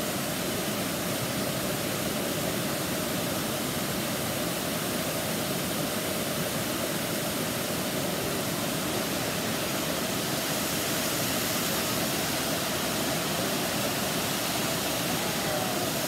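A large cascading waterfall rushing steadily.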